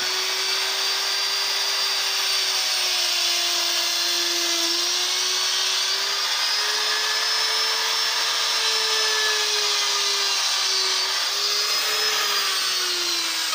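Handheld electric drill running steadily while boring the centers of a wooden owl's carved eyes, its pitch wavering slightly.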